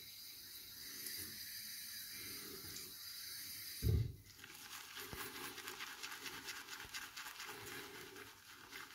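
Water running steadily for about four seconds, then a short thud, then a Semogue 820 boar-bristle shaving brush scrubbing lather onto the face in rapid strokes.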